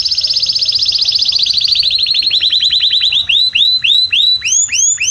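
Canary singing a rapid high trill that gradually slows and drops in pitch. In the last second or two it turns into slower notes that each sweep downward.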